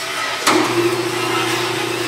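John Bean EHP System II tire changer running, its turntable drive motor giving a steady hum with a hiss over it as the wheel is worked on the machine, with one sharp clack about half a second in.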